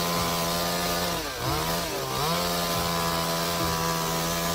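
Chainsaw engine running steadily at high revs. Its speed dips briefly and picks up again twice, about a second and two seconds in.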